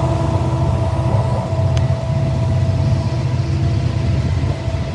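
Diesel locomotives at the head of a freight train running past, a heavy low engine rumble with a steady tone over it, and wind buffeting the microphone.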